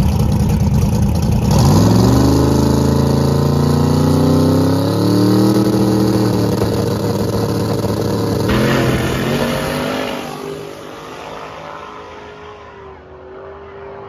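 Twin-turbo big-block V8 of a 1955 Chevrolet drag car, loud on the starting line, its revs sweeping up and held high. About eight seconds in it launches, and the engine fades as the car pulls away down the track.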